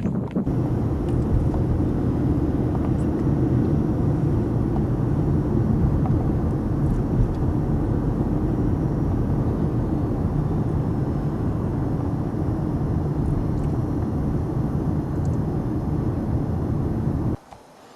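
An engine running steadily at an even pitch, cutting off abruptly near the end.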